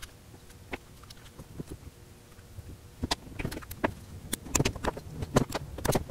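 Small tools and hard camera parts clicking and knocking against a wooden workbench as they are handled and set down. A few scattered clicks, then a quick run of sharper knocks in the second half.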